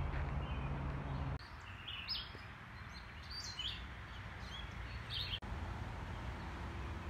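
A songbird giving a few short, high chirps in the middle, over steady outdoor background noise. A low rumble runs through the first second or so, then stops abruptly.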